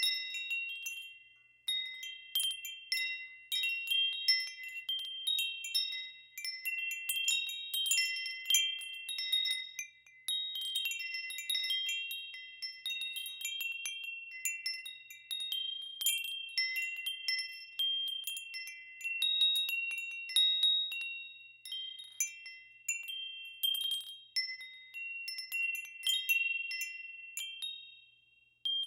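Wind chimes ringing: several high, clear pitches struck at random in irregular clusters and left to ring out, with brief lulls about a second and a half in and near the end.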